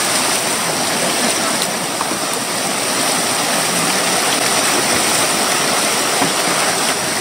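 Whitewater rapids rushing over rocks: a steady, loud, unbroken rush of fast river water.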